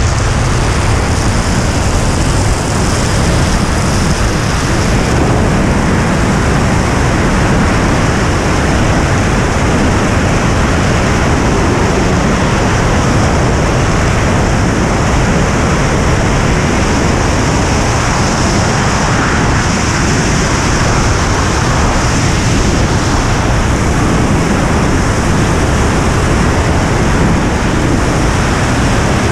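Loud, unbroken rush of wind buffeting the helmet camera's microphone in a high-speed wingsuit BASE flight.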